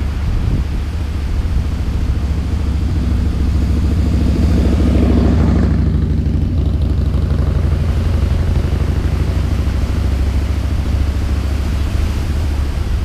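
A motorcycle riding past, its engine growing louder to a peak about five seconds in and then fading away, over a steady low rumble of wind on the microphone.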